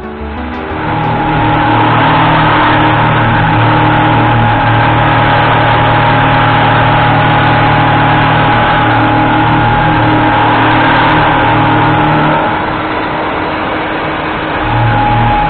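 UDM-2216 three-axis CNC machining centre milling a large metal plate with a 25 mm Pramet indexable-insert cutter at 2300 rpm: a loud, steady cutting noise with a high whine over a low hum. It eases off about twelve seconds in and picks up again near the end.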